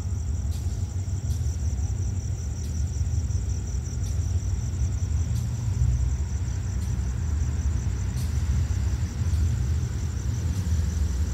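Crickets trilling steadily at a high pitch over a low, steady rumble from the distant diesel locomotive of express train 85 at the station.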